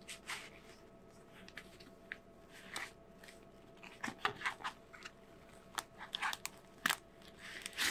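Handling noise of a fabric motion-capture glove with a stiff flat support insert inside, turned over and pulled in the hands: scattered rustles and light clicks, coming more often from about four seconds in.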